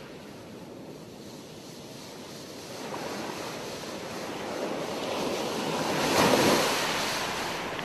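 Sea surf breaking on a beach: the rush of water builds, a wave crashes about six seconds in, and then it eases off.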